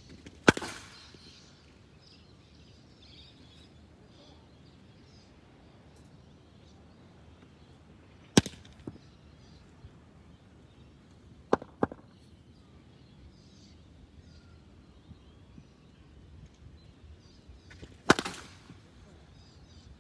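Cricket ball cracking off the bat in practice nets: a few sharp knocks, about half a second in, near eight seconds, a quick pair near twelve seconds and another near eighteen. Birds chirp faintly behind.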